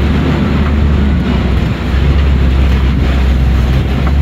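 Open-sided safari ride truck driving along a track: steady low engine drone with rumbling road noise from the moving vehicle.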